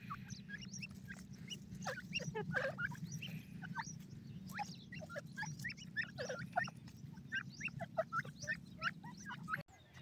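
Francolins (teetar) calling in a rapid run of short chirps, several a second and many falling in pitch, over a steady low hum. The sound cuts out abruptly near the end.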